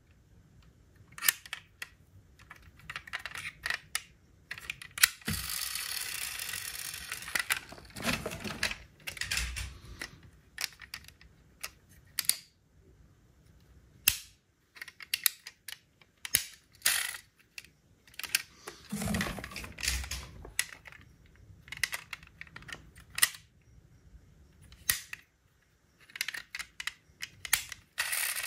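Diecast toy cars handled in the hands: a string of sharp clicks and taps as their small opening doors snap open and shut and their metal and plastic parts knock together. About five seconds in there are two or three seconds of rustling.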